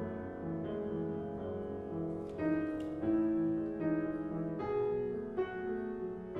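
Solo upright piano playing a slow piece, with new chords struck about once a second and left to ring.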